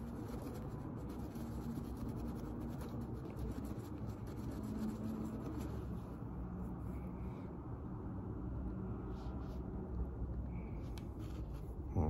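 Paper towel rubbing and scratching against a handbag's brass clasp and leather tab, a steady scrubbing that polishes off dirt and tarnish.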